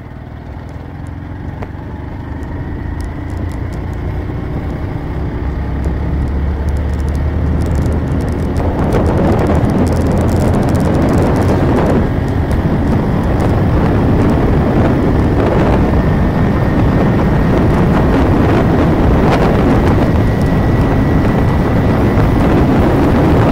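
A motor vehicle's engine pulling away and gathering speed, its pitch rising slightly. Wind buffets the microphone, growing louder over the first ten seconds or so and then staying loud, covering much of the engine.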